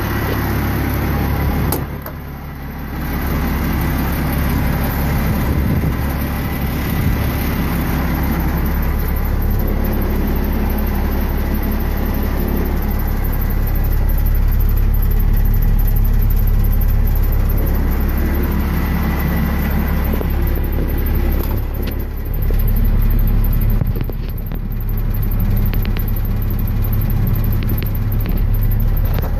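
International 4900 dump truck's DT466E inline-six diesel engine idling steadily at about 750 rpm.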